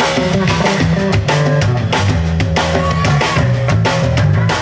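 Live rock band playing with a steady beat: two drum kits and an electric bass carry the groove, with guitar and hand percussion.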